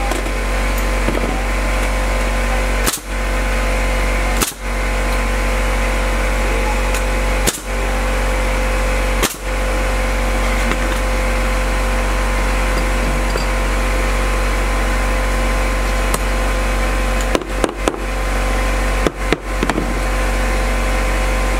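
A machine's steady hum with fixed tones, broken by short dips and clicks every few seconds, several in quick succession near the end.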